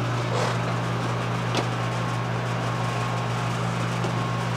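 A steady low machine hum, with a single light click about one and a half seconds in.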